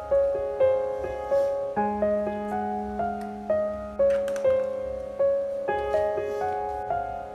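Background music: a gentle piano playing a steady melody of single notes about two to a second, with a held low note in the middle.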